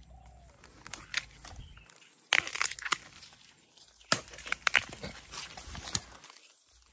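Dry bamboo leaves and twigs crackling and crunching in several short bursts as a gloved hand pushes in among the stems of a bamboo clump.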